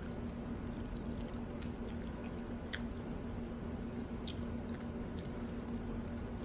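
A person chewing a mouthful of taco with the mouth working slowly, and a few soft wet mouth clicks now and then. A steady low hum runs underneath.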